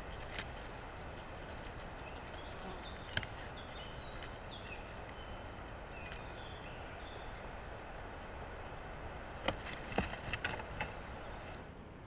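Steady hiss of a trail camera's microphone in a forest, with a small songbird singing a run of short high notes in the middle. Near the end comes a quick cluster of sharp clicks and knocks, the loudest sounds.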